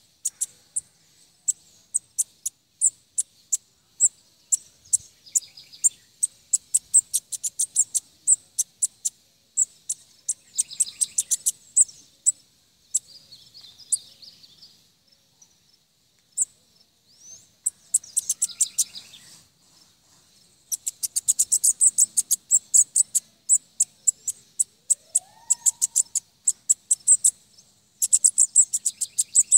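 Bananaquit (sibito) singing: long runs of sharp, high ticking notes, several a second, broken by short buzzy trills.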